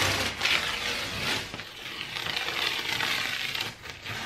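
Green painter's tape being peeled off a painted wall: a long, continuous tearing noise that drops away near the end.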